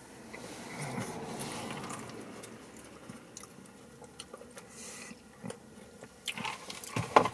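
A person chewing a bite of fish sandwich, with small wet mouth clicks. Around the middle there is a short sip through a drinking straw.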